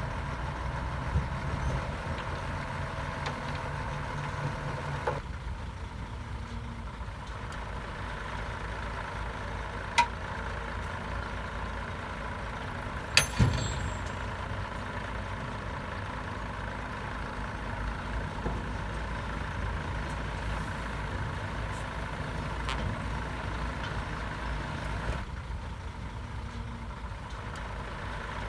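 Heavy diesel engine of earthmoving machinery running steadily, with a few sharp knocks, one about a third of the way in and a loud pair near the middle.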